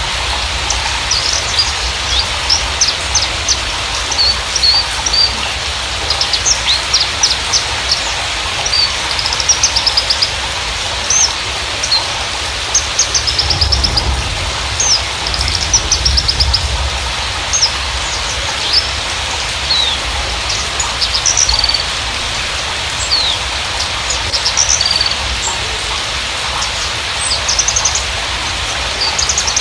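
Horsfield's bush lark (Mirafra javanica parva) singing: a rapid, continuous run of short high chirps and quick trills over a steady hiss.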